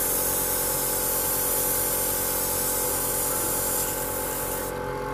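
Airbrush spraying paint, a steady hiss of air with a steady hum under it; the hiss stops shortly before the end.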